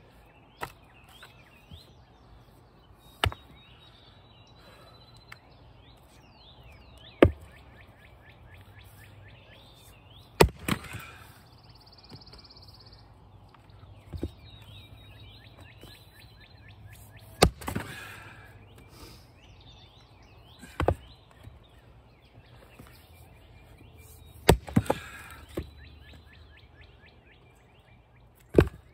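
Axe blows splitting knotty red maple firewood rounds: about eight sharp single strikes, one every three to four seconds, several followed closely by a second knock. Songbirds chirp throughout.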